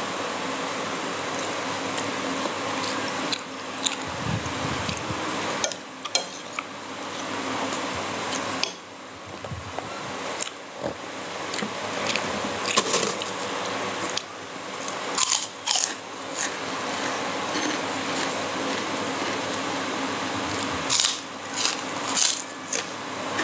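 A person eating: chewing and mouth noises with scattered sharp clicks, clustering near the end as food goes to the mouth, over a steady background hiss.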